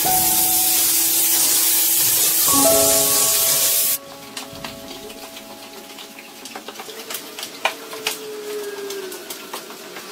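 Handheld disinfectant fogger spraying a loud, steady hiss that stops abruptly about four seconds in. After that comes the quieter rubbing of flat mops pushed over a polished tile floor, with scattered small clicks and taps.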